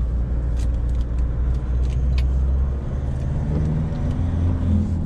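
Mahindra Pik-Up's diesel engine and tyre noise heard from inside the cab while driving: a steady low rumble, with the engine note climbing a little about three and a half seconds in as it accelerates.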